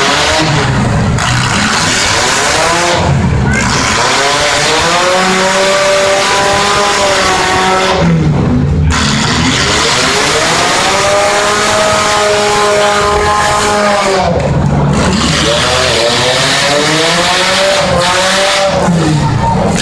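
Demolition derby car engines running hard, their pitch climbing and dropping again and again as the drivers rev up and back off.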